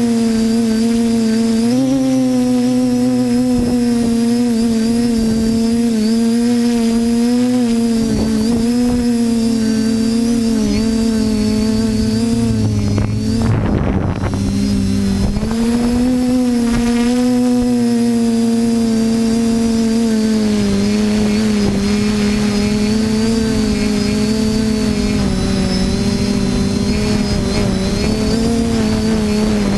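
TBS Discovery quadcopter's motors and propellers whining, the pitch rising and falling with the throttle. Around the middle the whine briefly drops away under a short rush of noise, then picks up again.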